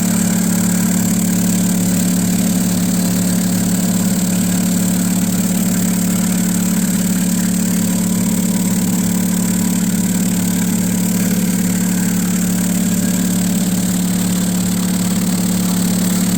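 A machine or motor running steadily, with a strong low hum and a high whine above it, holding at one even level throughout.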